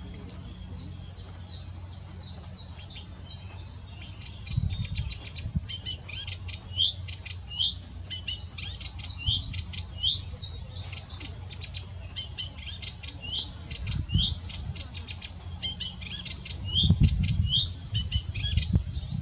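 Eurasian reed warbler singing a long, chattering run of short notes, each repeated a few times, with fast clicking trills mixed in. Bursts of low rumble come through about four and a half seconds in, again near fourteen seconds, and loudest near the end.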